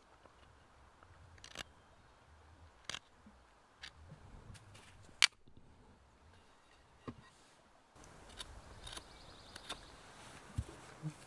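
Knife blade cutting into a bark-covered stick with a few sharp clicks, then a loud crack about five seconds in as the notched stick is snapped in two. Near the end, a few light taps and knocks of wood.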